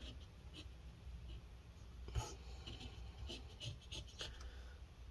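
Faint, scratchy scraping strokes of a tool scraping dried, crusty thermal paste off a laptop heatsink, with one louder scrape about two seconds in; the paste has dried out from heat.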